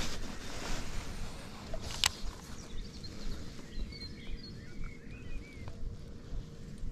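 Open-water ambience: a low, uneven background rumble, one sharp click about two seconds in, and a bird calling a few short rising-and-falling notes around the middle.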